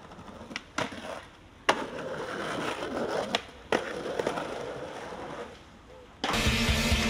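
Skateboard wheels rolling on stone pavement, broken by several sharp clacks of the board, the loudest about a second and a half in, and trucks grinding along a stone ledge. About six seconds in, music with a steady beat starts abruptly.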